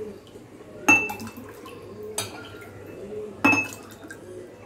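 Steel ladle clinking against a steel pot and drinking glasses while lemon-mint water is scooped and poured into the glasses: two sharp, ringing clinks, about a second in and again near the end, a lighter one between, with liquid pouring.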